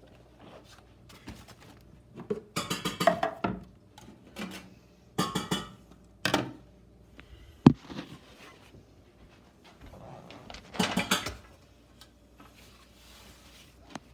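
Metal kitchenware being handled: a baking sheet and pans clattering in several short bursts, with one sharp clank about eight seconds in.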